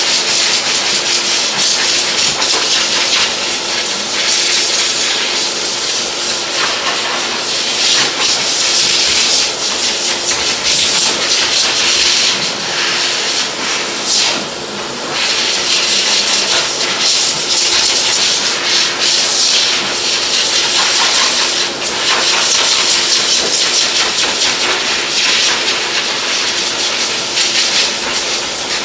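Dog grooming hose dryer blowing air onto a short-coated dog: a loud, steady rush of air over a constant motor hum, wavering a little in loudness as the nozzle is moved.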